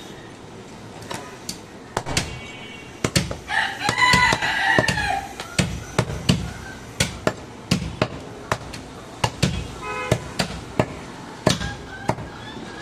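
Heavy chopping knife chopping goat ribs into pieces on a wooden log block, about two sharp chops a second. A rooster crows loudly about three and a half seconds in, over the chopping.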